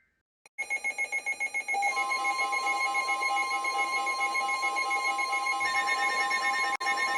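NOAA Weather Radio alert signal: about a second of rapid, regular beeping, then the steady Warning Alarm Tone sounding continuously. The tone signals that a warning-level alert is about to be read.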